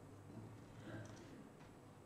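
Near silence, with a few faint computer keyboard clicks about a second in.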